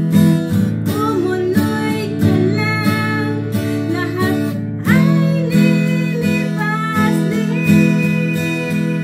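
Yamaha acoustic guitar strummed in a steady chord rhythm, with a voice singing a melody over it.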